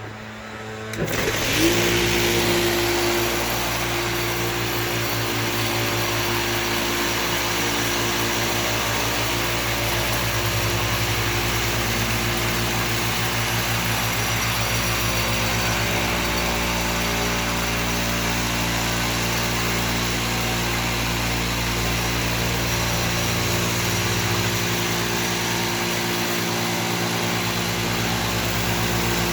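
Electric floor sander switching on about a second in, spinning up quickly, then running steadily as it is pushed across the deck boards.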